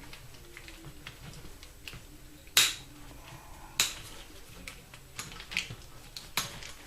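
Plastic split loom tubing being worked over wiring harness bundles: faint rustling and small ticks, with two sharp snapping clicks a little over a second apart.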